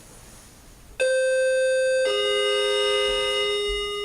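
Two-note doorbell chime: a higher "ding" about a second in, then a lower "dong" a second later, both ringing on and slowly fading.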